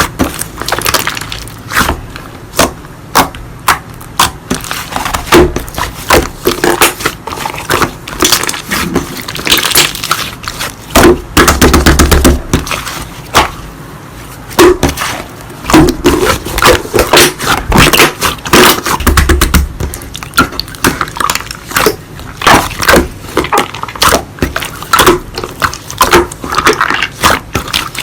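Slime being squeezed, pressed and stretched by hand, making a steady run of irregular sticky clicks, pops and crackles.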